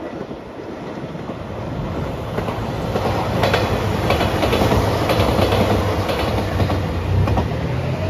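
Three-car JR Shikoku 2700 series diesel express train passing close by. Its engine drone and wheel rumble build up, then peak as the cars go past, with sharp clicks of the wheels over rail joints.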